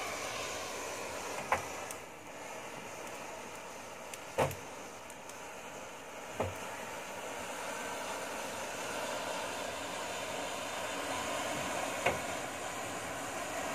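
Rows of matchsticks burning, a steady rushing hiss of flame as the match heads keep catching, broken by four sharp pops, the loudest a few seconds in.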